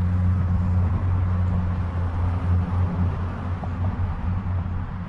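Steady low engine hum, easing off slightly near the end, over light outdoor background noise.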